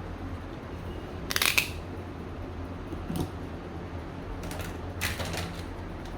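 Handling of small paper craft pieces: four short bursts of rustling and clicking, the loudest about a second and a half in, over a steady low hum.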